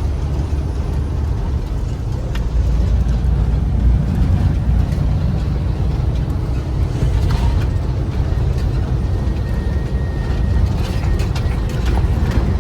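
Road noise inside a moving car: a steady low rumble of tyres on a bumpy road and the engine, with a few light knocks and rattles.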